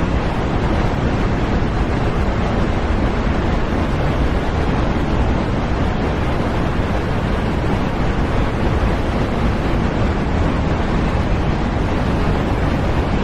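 A loud, steady rushing noise that does not change.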